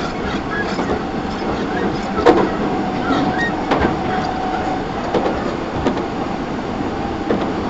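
Nagoya Municipal Subway 5050 series train running, heard inside the car: a steady rumble of wheels on rail, broken by a few sharp clacks.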